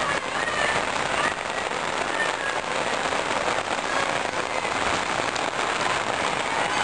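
Steady rain falling on a flooded lane, a dense even hiss of drops splashing into standing water.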